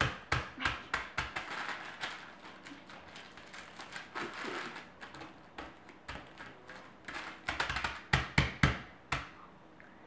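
Crackers being crushed by hand inside a plastic bag on a countertop: repeated taps and thumps of hands pressing and pounding the bag, with rustling in between and a run of harder thumps near the end.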